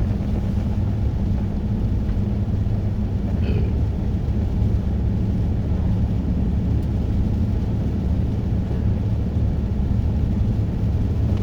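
Pontiac Grand Prix driving, its engine and road noise a steady low rumble inside the cabin.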